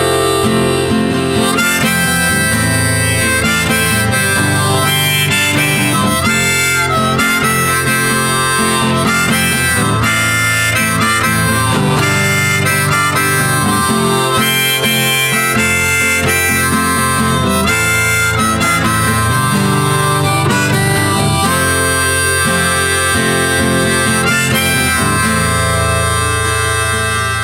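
Background music: an instrumental passage with harmonica over guitar, at a steady level.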